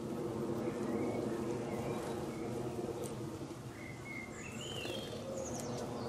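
Small garden birds giving short chirping calls, with a run of rising notes near the end, over a steady low droning hum.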